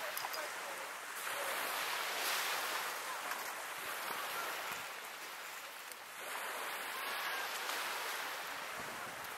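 Small waves washing onto a shingle beach: a steady hiss that swells and fades twice. Faint distant voices come through now and then.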